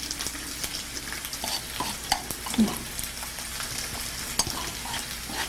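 Pork belly slices frying in a pan with ginger: a steady sizzle with scattered crackles and pops as the fat renders out and the meat browns.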